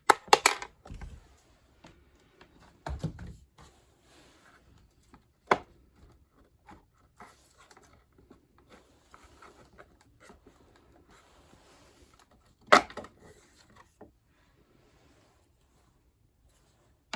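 Fan motor parts being handled by hand: scattered clicks and knocks with quiet stretches between, the sharpest knock about 13 seconds in.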